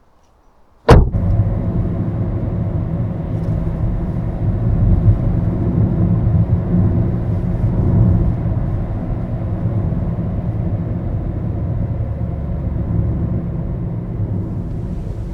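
A car running, its engine and road noise starting abruptly about a second in as a steady rumble with a low hum, swelling slightly midway and easing near the end.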